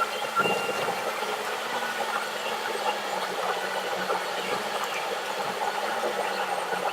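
A vehicle's engine running with a steady low hum, under a constant haze of road noise and a few faint clicks.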